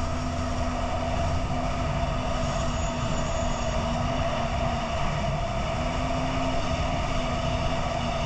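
Boat motor running steadily under way, with a continuous drone and an even rush of wind and water. Its lower tone drops out briefly about five seconds in, then returns.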